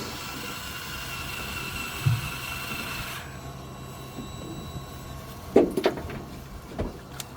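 Fishing boat noise: a steady low engine hum throughout, with a steady high mechanical whine that cuts off suddenly about three seconds in. Several sharp knocks on deck or gear follow after about five and a half seconds.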